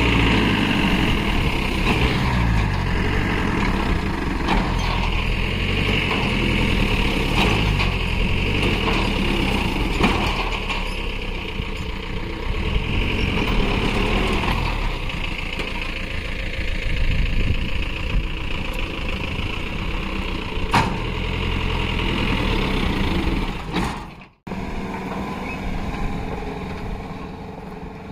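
Engines of a truck-mounted borewell drilling rig and the jeep towing it out of sand, running steadily under load. About 24 seconds in the sound cuts out briefly and comes back quieter, the vehicles now moving away.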